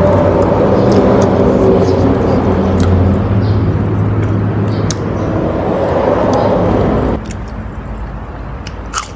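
A motor running with a steady low hum that cuts off abruptly about seven seconds in, with soft chewing clicks over it.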